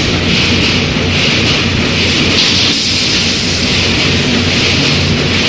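Automatic wire mesh welding machine running, with a steady electrical hum under a continuous mechanical hiss and clatter.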